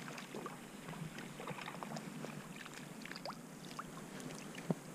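Faint water splashing and small clicks and ticks as a small hooked fish, most likely a perch, is played in and landed on ultralight tackle.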